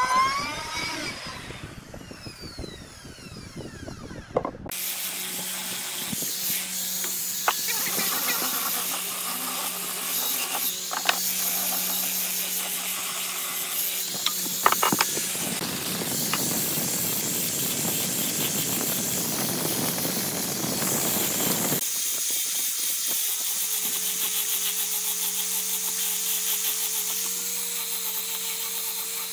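A wood router winds down, its pitch falling, then a handheld angle grinder fitted with a sanding disc starts abruptly and runs, a steady whine under the hiss of abrasive sanding wood, with a few sharp ticks. Its sound changes suddenly about 22 seconds in and carries on steadily.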